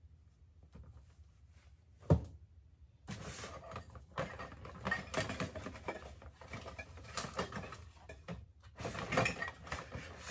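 Rummaging in a white plastic drawer unit: a single sharp knock about two seconds in, then continuous rustling and clattering as a drawer is pulled out and the things inside are dug through.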